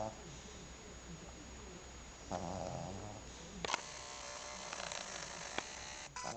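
Maltese dog snoring in its sleep: one rasping snore about two seconds in. A second later come a couple of sharp clicks, the loudest thing heard.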